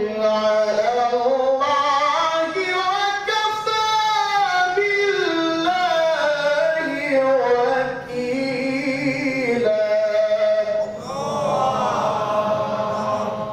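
A male Quran reciter chants in the melodic tilawah style into a microphone. He draws out a long phrase in held, bending notes that climb to a high point about four seconds in and then come down, with short breaks for breath about eight and eleven seconds in.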